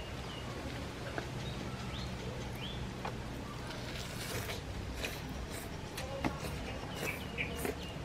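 Rural outdoor ambience: birds chirping over a low steady rumble. From about halfway in come crisp rustling and crunching as lettuce-wrapped fried small fish are handled and bitten into.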